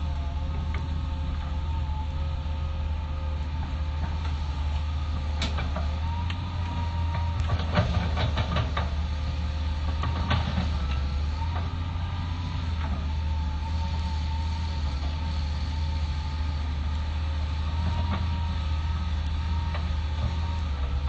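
Hitachi excavator's diesel engine running steadily with a faint whine on top, and a cluster of sharp knocks about five to ten seconds in.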